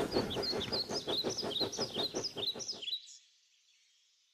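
Birds chirping in quick repeated calls over a rapid, even clicking from a running toy train, both cutting off abruptly about three seconds in.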